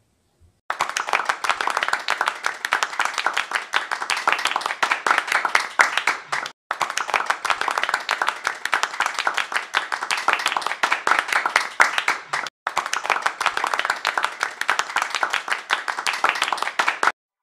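Recorded applause, many hands clapping, starting about a second in, breaking off for an instant twice as if looped, and stopping abruptly just before the end.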